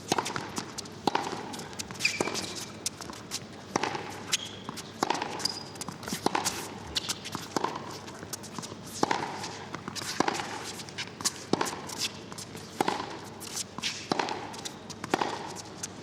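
Tennis rally: the ball struck back and forth by racquets and bouncing on the court, sharp hits about once a second, with a couple of brief shoe squeaks.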